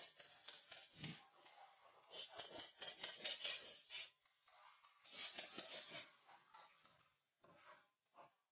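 A wooden stick stirring and scraping a gritty dark mixture around a small can in repeated short, rough strokes.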